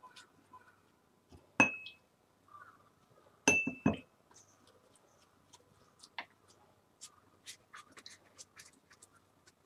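Basting brush knocking against the rim of a small ceramic cup as it is dipped: a sharp clink with a short ring about a second and a half in, then a louder double clink near four seconds. Faint light ticks and dabs follow as the brush works over a shiitake cap.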